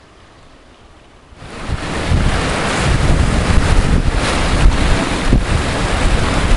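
Strong wind buffeting the microphone in gusts over the wash of a rough sea breaking on rocks. It starts suddenly about a second and a half in, after a faint hiss.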